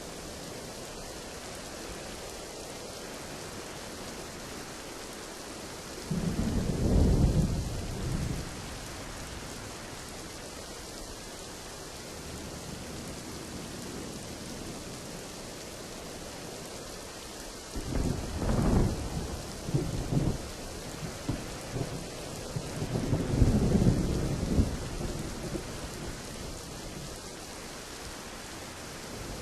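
Steady rain hissing, with three rumbles of thunder: one about six seconds in lasting a couple of seconds, another around eighteen seconds in, and a third close after it near twenty-three seconds.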